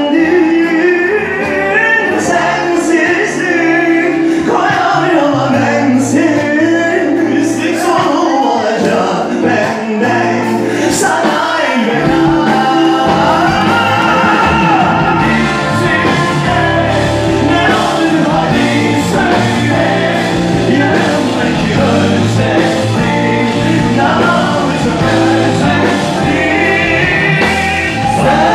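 Two men singing a Turkish song live with a band that includes electric guitar and keyboard. The low end of the band grows fuller about twelve seconds in.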